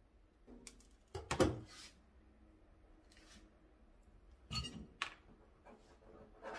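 Light kitchen handling sounds: scissors snipping open a vitamin E capsule, then a few sharp clicks and clinks as the hands work over a metal mesh strainer and bowl. The loudest cluster comes about a second and a half in, with another pair of clicks past the middle.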